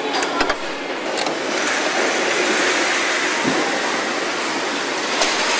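Car assembly-line noise: a steady hiss of factory machinery with scattered sharp metallic clicks, a few near the start and one near the end.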